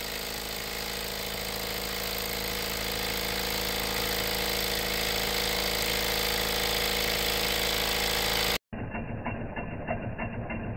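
Wilesco D14 model steam engine running fast: a steady hiss with a steady hum that grows slightly louder. About nine seconds in, the sound cuts to the same engine running with a quick, even ticking rhythm.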